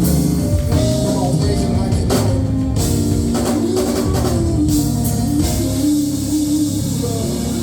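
Live gospel band playing: electric guitar, bass and drum kit, with long bending guitar notes over the drums.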